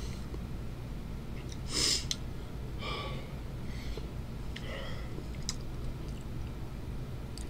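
A person's mouth sounds while eating: three short, sharp breaths through the mouth about a second apart, with faint chewing and lip clicks. The breaths are drawn against a tongue burning from a Reaper-pepper candy filling.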